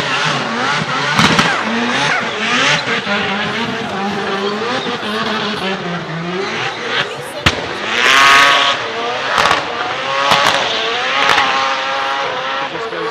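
Mazda 26B four-rotor twin-turbo rotary engine revving hard in repeated bursts as the car spins its rear tyres in donuts. The revs rise highest about eight seconds in, and several sharp cracks come through from about seven seconds on.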